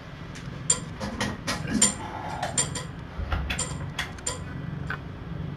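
A quick, irregular run of light clicks and taps over a low steady hum. The clicks stop near the end.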